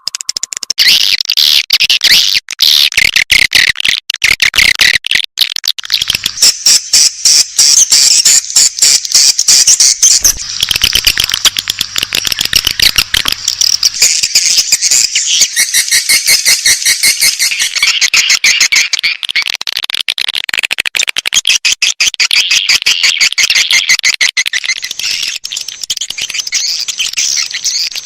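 Swiftlet lure call: a recording of edible-nest swiftlets twittering, a dense unbroken stream of rapid high chirps and clicks, of the kind played to draw swiftlets into a nesting house.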